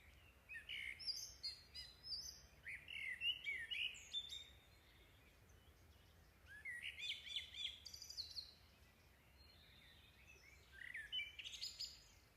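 Faint birds chirping and whistling in three short spells of quick rising and falling notes, with quiet gaps between.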